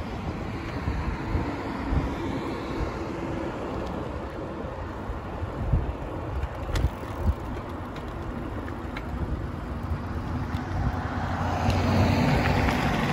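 Bicycle tyres rolling along a paved path with wind on the microphone, a few knocks about halfway through; from about eleven seconds in the tyres crunch over gravel, louder.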